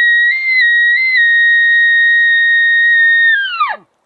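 Elk bugle call blown through a bugle tube, imitating a rutting bull elk: a loud, high whistle held steady with two short upward breaks about a third of a second and a second in, then falling steeply in pitch and cutting off shortly before the end.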